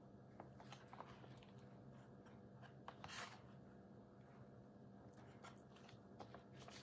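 Faint scrapes and light clicks of a knife slicing through soft steamed banana cake and touching the ceramic plate beneath, with one slightly longer scrape about three seconds in. A low steady hum runs underneath.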